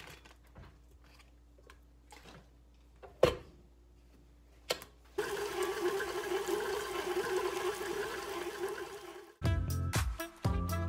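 A couple of sharp knocks, then a KitchenAid stand mixer runs for about four seconds, its flat beater mixing cream cheese icing. Background music with a steady beat starts near the end.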